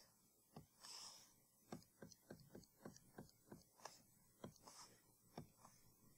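About a dozen faint, irregularly spaced computer mouse clicks as a calculation is keyed into an on-screen calculator.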